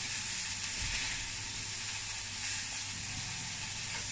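Venison medallions frying in a hot pan on a gas hob: a steady sizzle.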